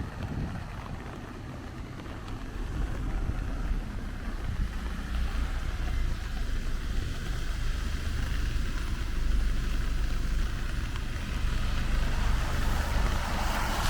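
City traffic on rain-wet streets: a steady low rumble under a hiss of tyres and rain. The hiss grows louder near the end.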